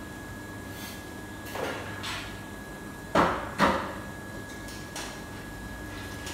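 Kitchen handling knocks at a stainless-steel wok range: a few light knocks, then two loud sharp knocks about half a second apart, with a little ringing, as things are set down at the stove. A steady hum runs underneath.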